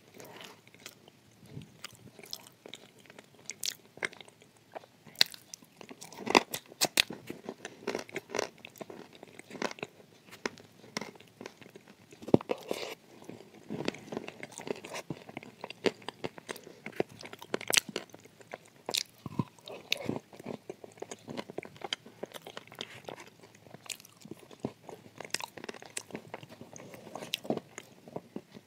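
Close-miked crunching and chewing of baked edible clay chunks ("shortbread" clay): sharp, irregular crunches as pieces are bitten and broken down, between softer chewing.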